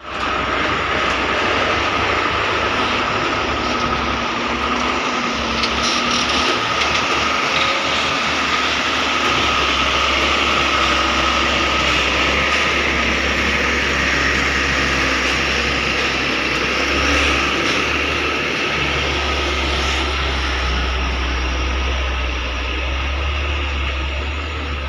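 Excavator running: a steady mechanical din with a constant high whine over a low engine hum.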